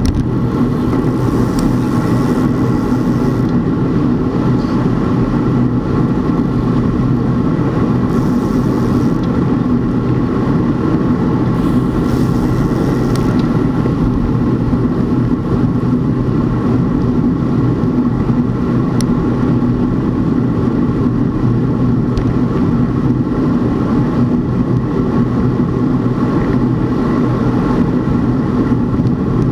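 A motor vehicle's engine running at a steady speed, a constant hum over road and wind noise, with a few brief hissy gusts early on.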